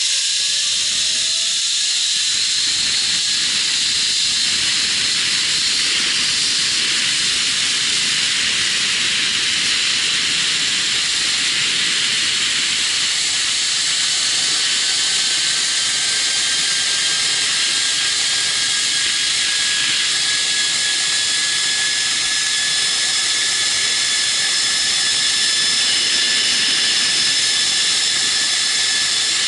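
Zip-line trolley pulleys running along the steel cable at speed: a steady loud high hiss with a faint whine that slowly rises in pitch.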